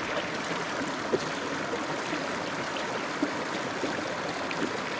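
Mountain stream running over rocks, a steady rushing of water, with a couple of brief faint clicks about a second in and again after three seconds.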